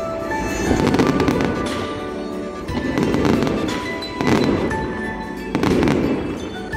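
Aerial fireworks shells bursting overhead, four big bangs with rumbling, crackling tails, while music plays throughout.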